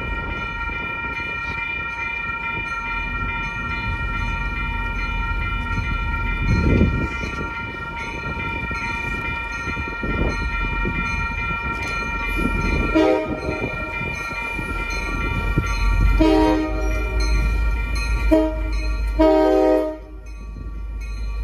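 Railroad crossing bell ringing steadily as an MBTA diesel locomotive approaches. The locomotive's horn sounds four blasts in the second half: short, long, short, long. A low engine rumble grows as it nears.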